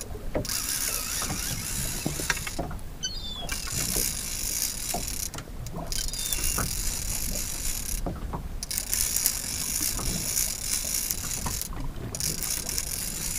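Multiplier boat reel being cranked in runs, its gears and ratchet clicking, with a short pause every two to three seconds as the rod is pumped. A heavy fish is being wound up from the bottom.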